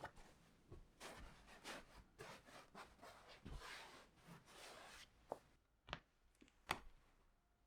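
Quiet handling sounds: soft rustling and rubbing of objects being moved about, with a few sharp light clicks in the second half.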